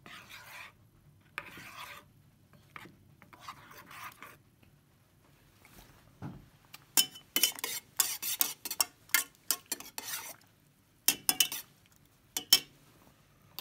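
A spoon stirring coffee in a metal camp pot. Soft rustling of handling comes first, then, about halfway through, several seconds of quick metallic clinks and scrapes against the pot.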